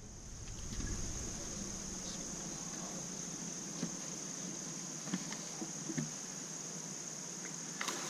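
A steady, high-pitched chorus of late-summer insects from the riverbank trees, with a few faint clicks and knocks scattered through it.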